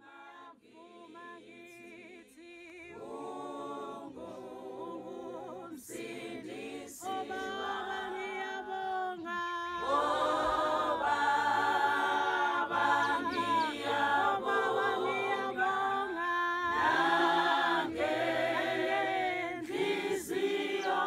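Unaccompanied choir singing, several voices together, starting quietly and growing louder, fullest from about ten seconds in.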